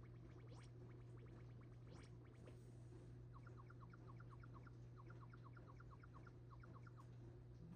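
Near silence with faint, rapid, bird-like chirping over a steady low hum; the chirps come in a quick series from about three seconds in until near the end.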